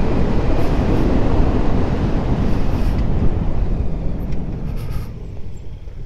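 Motorcycle riding downhill: steady wind rush on the microphone over the engine, dropping in level about five seconds in as the bike slows into a hairpin.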